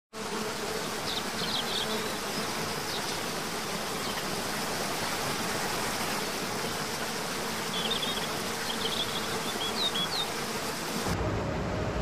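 Steady rush of a waterfall, with brief high chirps about a second in and again around eight to ten seconds in. The sound changes abruptly shortly before the end.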